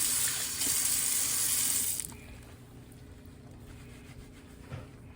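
Tap water running into a sink to wet a wig. The water is turned off abruptly about two seconds in.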